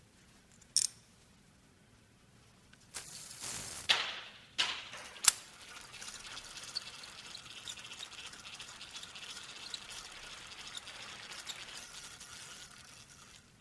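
Fishing rod reel being worked: a single click, a burst of noise about three seconds in, and a few sharp clicks, then the reel running steadily for about seven seconds with faint ticks before it stops.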